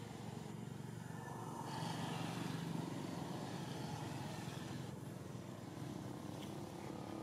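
A motor engine running with a steady low rumble, swelling about two to three seconds in and then easing off.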